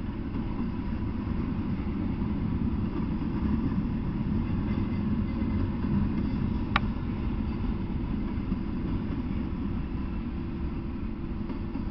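Double-stack intermodal freight train passing, a steady low rumble of wheels on rail, with one sharp click about seven seconds in.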